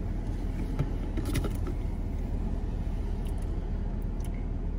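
Steady low hum inside a parked car's cabin, with a few faint clicks and taps from a metal spoon and a honey bottle being handled.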